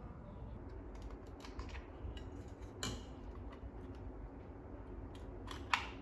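Hands handling a plastic wireless computer mouse while changing its battery: scattered light clicks and taps, the sharpest one near the end.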